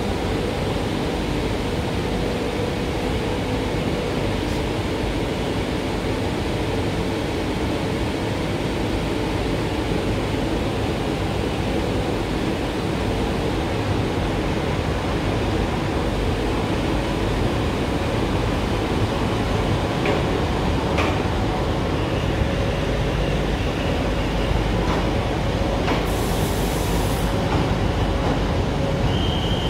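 Two coupled Indian Railways diesel locomotives running steadily as they shunt a single coach past, their engines giving a continuous low rumble with a steady droning note. A short hiss comes about three seconds before the end, and a brief high-pitched squeal near the very end.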